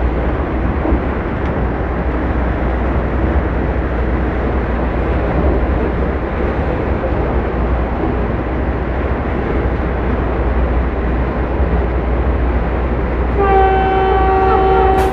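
Vande Bharat Express electric train running at speed, heard from inside the driver's cab: a steady rumble and rushing noise. About thirteen seconds in, the train's horn sounds one steady tone for about a second and a half.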